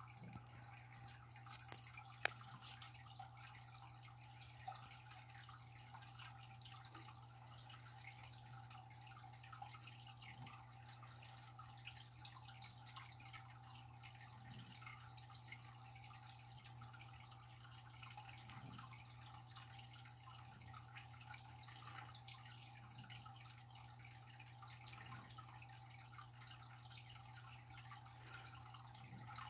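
Near silence: a steady low hum with faint, scattered dripping ticks, and one sharp click about two seconds in.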